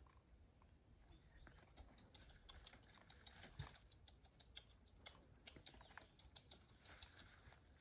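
Faint, scattered crackles and rustles of dry leaves and grass stems being handled close to the ground, with one slightly louder snap about halfway through.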